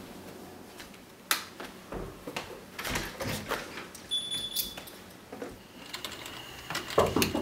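Scattered knocks and clicks of a house door being handled, a brief high tone about four seconds in, then quick clicks of typing on a computer keyboard near the end.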